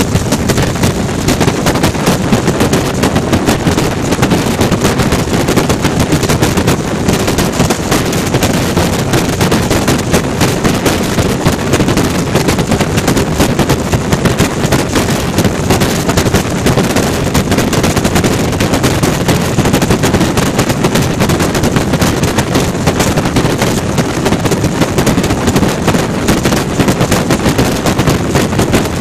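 Corvair air-cooled flat-six engine and propeller of a Pietenpol open-cockpit monoplane running steadily in flight, mixed with heavy wind buffeting on the microphone. It makes a loud, rapid, unbroken crackle.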